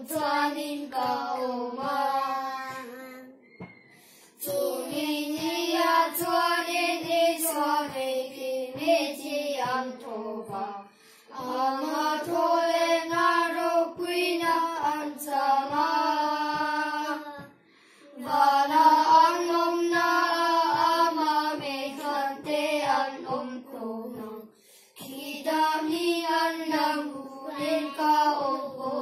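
Four young children singing a hymn together from hymnbooks, in phrases of several seconds with short breaks for breath between them.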